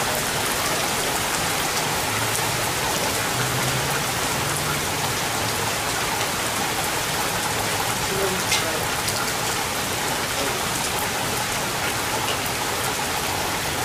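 Steady rain falling in a thunderstorm, an even hiss with scattered drops ticking on nearby surfaces.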